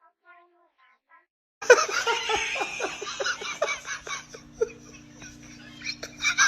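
Faint short chirps, then from about a second and a half in, loud laughter in quick giggling bursts over a steady low hum.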